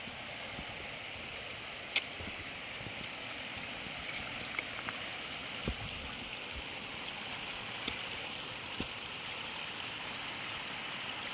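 Steady rushing of creek water flowing over rocks, with a few faint, sharp clicks scattered through it, one of them about two seconds in.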